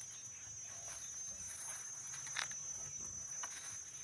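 Steady high-pitched insect trilling, with faint light taps or rustles about two and a half and three and a half seconds in.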